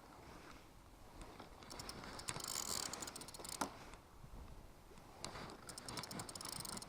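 Fishing reel clicking faintly in two quick runs, about two seconds in and again from about five seconds in, as a hooked fish is played on light line with the drag set.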